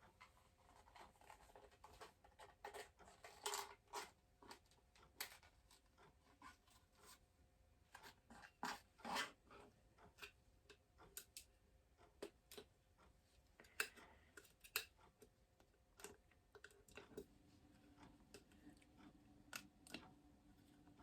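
Quiet, irregular clicks, taps and short scratchy rustles of small objects being handled close to the microphone, over a faint steady hum.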